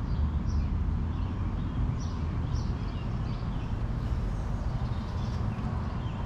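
Birds chirping repeatedly over a steady low rumble.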